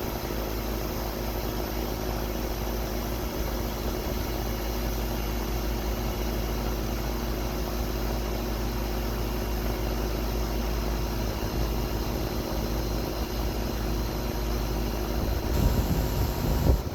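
Air conditioner running steadily: an even whir from its fan with a constant hum of several tones. Near the end the sound briefly changes and gets louder with a low rumble.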